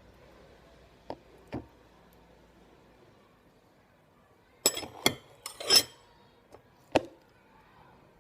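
Hard objects being handled and set down: two light knocks, then a quick cluster of louder clinks and knocks about five seconds in, and a single knock near the end.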